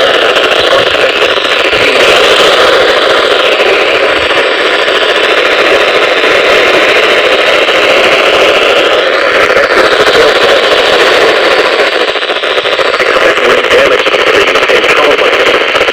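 Loud, steady radio static: the hiss of a weak, far-off radio signal.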